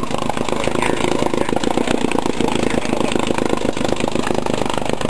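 1958 Johnson Sea Horse 18 hp two-cylinder two-stroke outboard motor running steadily at a fast even putter, warming up after a cold start.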